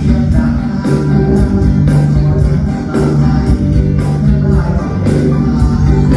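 Band music with a steady beat: a bass line, held pitched notes and regular cymbal hits, with some singing.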